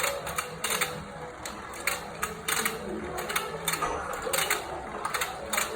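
Toy fishing game running: its small motor and gears whir steadily with irregular clicking.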